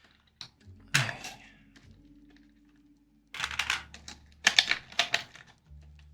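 Hard plastic clicks and clacks from mechanical keyboard switches and keycaps being handled and unboxed: one sharp click about a second in, then two quick clusters of clacks past the middle.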